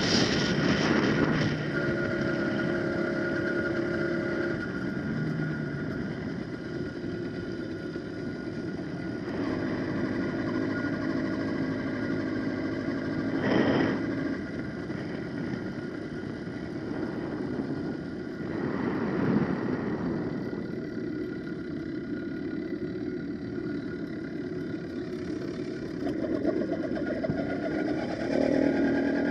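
Wildcat PK80 80cc two-stroke motorized-bicycle engine running under way, its pitch shifting up and down with the throttle. Two brief rushes of noise break in, about halfway and two-thirds of the way through.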